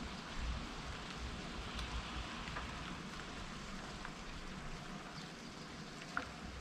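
Steady rain falling, with scattered single drops ticking close by and one sharper drop tick about six seconds in.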